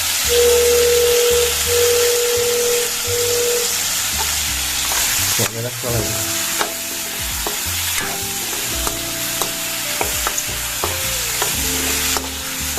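Mixed vegetables with freshly added tomato and green chilli sizzling in hot oil in a pan as they are stirred, a steady hiss with light clicks from about six seconds in.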